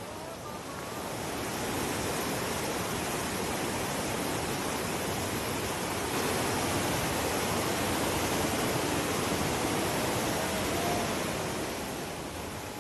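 Steady rush of flowing river water, the Yamuna, growing louder about two seconds in and again around six seconds.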